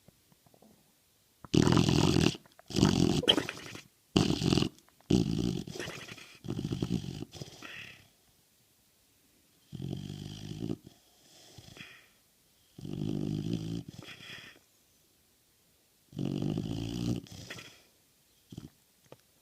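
American Bulldog snoring in its sleep: a run of about six quick snores, then three slower, longer snores spaced a few seconds apart.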